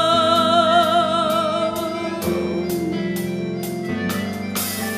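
Music: a long held note with vibrato over sustained organ-like keyboard chords, fading after about two seconds. The chords carry on under light high percussive strikes about twice a second.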